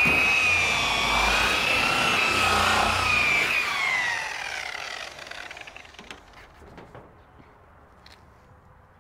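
Electric buffer (rotary polisher) running with a steady high whine while buffing compound is worked into heavily oxidized paint. About three seconds in it is switched off and spins down in a falling whine that fades out, followed by a few light clicks.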